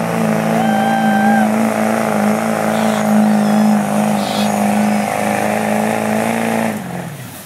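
Diesel pickup engine running hard at full throttle, pulling a weight-transfer sled, holding a steady high-revving note, then falling away sharply near the end as the throttle is released. A short whistle sounds near the start.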